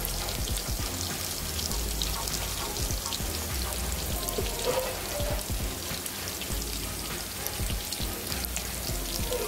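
Chicken balls deep-frying in oil in a kadai over a low flame: a steady, dense crackle of many small pops.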